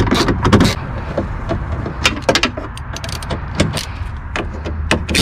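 Ratchet wrench clicking and metal tools clinking as an 8 mm bolt is worked loose inside a car door. The clicks come in short clusters, one in the first half second and another around two to three seconds in.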